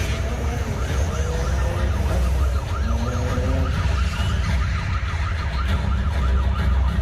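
Emergency-vehicle siren sounding in a fast up-and-down yelp, about three cycles a second, over a heavy low rumble.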